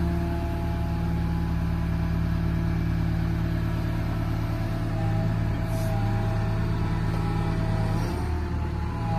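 Caterpillar M315 wheeled excavator's diesel engine running steadily while the hydraulics swing the boom and tilt the bucket. A higher whine rises and falls over the drone as the arm moves, strongest a little past halfway and near the end.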